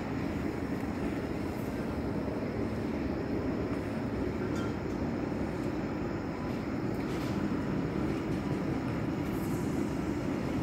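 Steady low rumble of outdoor background noise, even throughout, with no distinct events.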